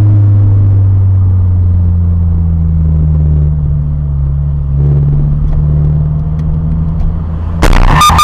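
Steady low drone inside a moving car. About seven and a half seconds in, a sudden loud clatter of impacts: the car colliding.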